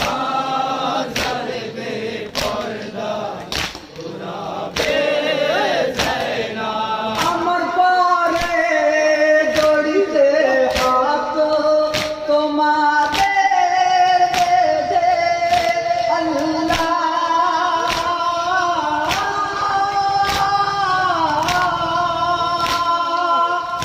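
A group of men singing a noha, a Shia mourning lament, in unison. Hand chest-beating (matam) strikes together in a steady beat, about three strokes every two seconds.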